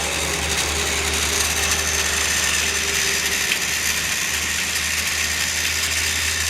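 Two TOMY Trackmaster Paxton toy diesel shunters, each driven by a single-AA battery motor in a flat-type drive unit, whirring steadily as they run around plastic track.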